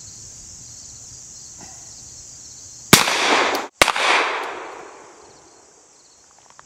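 A Webley Mk VI revolver with a shaved cylinder firing a .45 Auto Rim handload: a loud shot about three seconds in, then a second sharp report about a second later that fades away over roughly two seconds.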